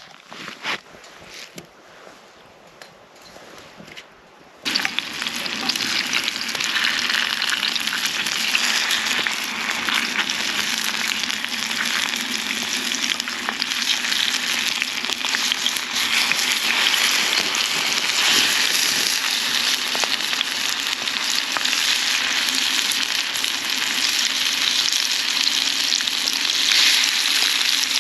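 Food sizzling in a frying pan over a campfire, starting suddenly about five seconds in and running on steadily, after a quieter stretch with a few faint clicks.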